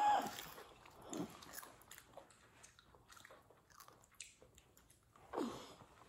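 Close-up chewing and biting of fried chicken, with small clicks and crunches. Three short wordless vocal sounds break in: one at the start, one about a second in, and one near the end, the last two falling in pitch.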